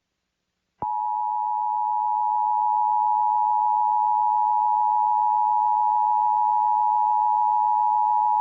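Emergency Alert System attention signal: a steady two-tone alarm (853 and 960 Hz) that switches on with a click about a second in and holds level. It marks the start of a new emergency alert.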